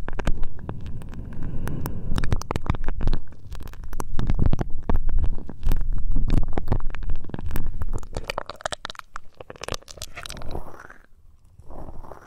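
Hands rubbing and massaging the ears of an ASMR microphone: a muffled low rumble full of close crackles and scratchy clicks, dying away near the end.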